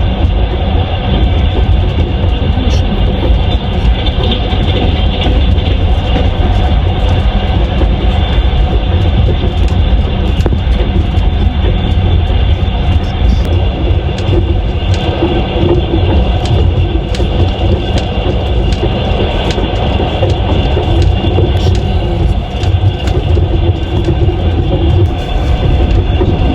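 Moving train: the steady rumble of the carriage with the monotonous knocking of its wheels on the rails.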